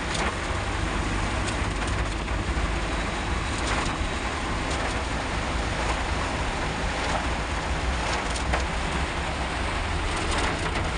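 Steady rumble and wash of a car driving on a wet road in rain, heard from inside the cabin.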